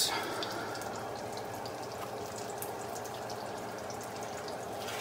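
Battered redfish patties frying in a pan: a steady sizzle with faint scattered crackles.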